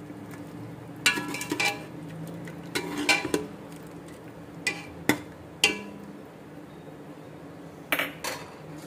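Metal ladle stirring a thick curry in a stainless steel pot, clinking and scraping against the pot's side in several short bunches of sharp clinks that ring briefly, over a low steady hum.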